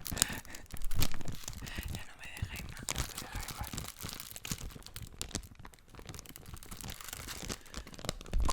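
Paper being handled, torn and crinkled in irregular crackling strokes, with a louder rustle about a second in.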